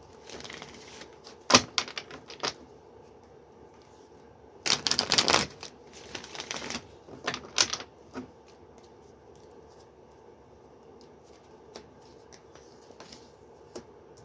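Tarot cards being handled: a sharp click about a second and a half in, a few rapid clicks, then a longer burst of shuffling around five seconds in and shorter bursts after it. The last several seconds hold only a few faint ticks.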